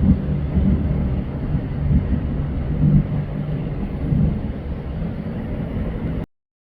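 Engines of a small fire-department rescue boat running with a steady low drone over a low rumble. The sound cuts off abruptly about six seconds in.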